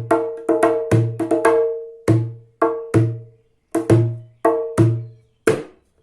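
Small djembe played with the hands in the Egyptian/Turkish way, a repetitive rhythm mixing deep bass "doom" strokes and sharp ringing "tack" strokes. The strokes come quickly at first, then spread out after about two seconds into a few single strokes. The run ends on a last tack stroke near the end.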